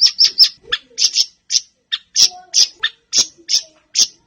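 Siri-siri songbird calling in a rapid series of short, sharp, high chirps, about two to three a second with brief gaps.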